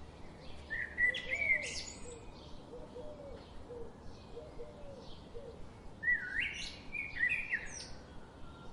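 Birds singing: two loud, complex song phrases, one about a second in and one about six seconds in, over softer chirps that repeat throughout. Faint low calls come in the middle.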